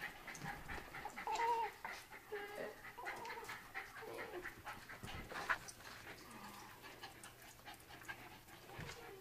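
Small pet dogs panting and moving about, with a few short, faint squeaks and scattered light clicks and taps.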